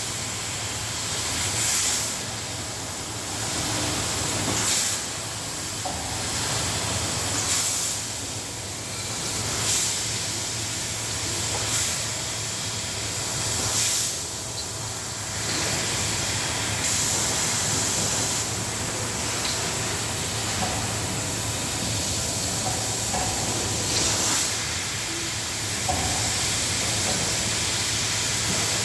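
CNC cutting machine running with a steady, loud hiss and a low hum underneath. The hiss swells every two to three seconds through the first half and holds steadier in the second.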